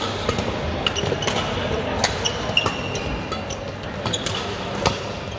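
Badminton doubles rally: sharp racket-on-shuttlecock hits, often less than a second apart, echoing in a large sports hall. A court shoe squeaks briefly on the floor midway through, over background chatter.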